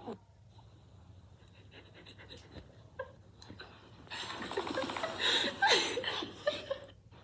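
A few soft clicks and rustles of handling. Then, about four seconds in, a person makes breathy panting vocal noises close to the microphone for about three seconds, and these stop sharply just before the end.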